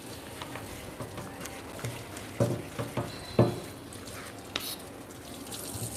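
Kitchen knife chopping carrots on a wooden cutting board: irregular knocks of the blade on the board, the two loudest about a second apart near the middle.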